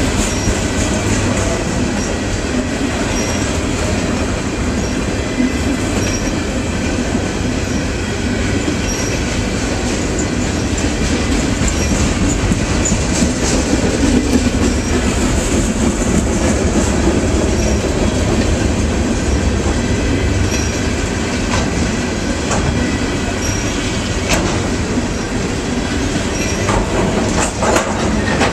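Freight train cars rolling slowly past: a steady rumble of steel wheels on rail, with a few sharp clacks in the last few seconds.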